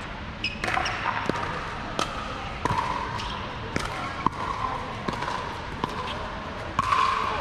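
Sharp pops of a plastic pickleball striking paddles and bouncing on the hard court, at irregular intervals.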